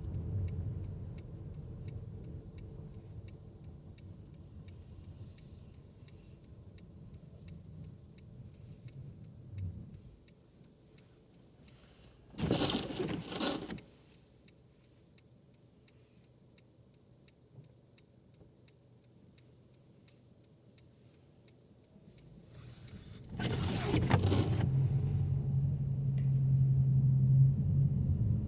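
Car interior: engine and road rumble dies away as the car slows, while a turn signal ticks steadily. After a quiet stretch broken by one brief loud noise, engine and road noise build up again as the car pulls away.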